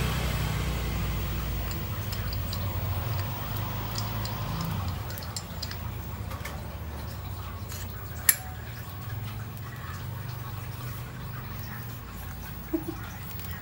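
Small metallic clicks and taps of carburettor parts being handled during a jet-needle swap, with one sharper click about eight seconds in, over a low steady hum that fades over the first few seconds.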